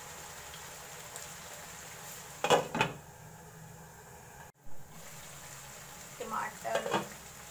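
Meat curry simmering in a wok with a steady low sizzle. About two and a half seconds in, a glass lid clatters down onto the pan with two sharp knocks, and the sizzle sounds duller under it.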